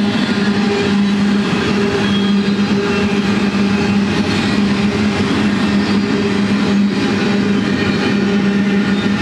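Double-stack intermodal container cars of a freight train rolling past. The wheels on the rails make a loud, steady noise with a low hum through it.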